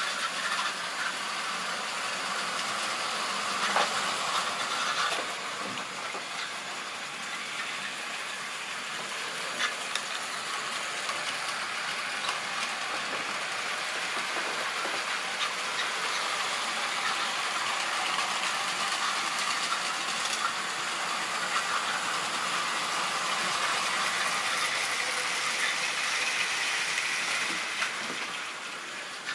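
Model railway train running on the track: a steady whirring hiss of the small electric motor and wheels on the rails, with a few scattered clicks.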